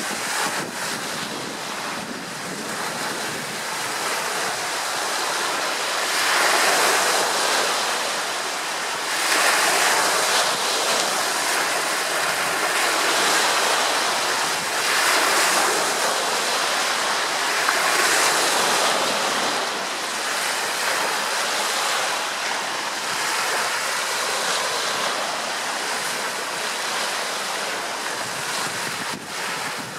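Small waves washing onto a shore, the rush of water swelling and fading every few seconds.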